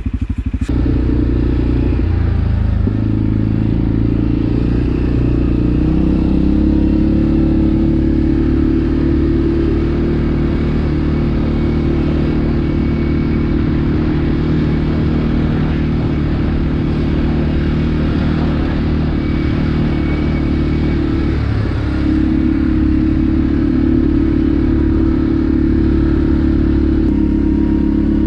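CFmoto CForce 450L ATV's single-cylinder engine running while under way, its pitch shifting a few times with the throttle, with a brief dip about three quarters of the way in.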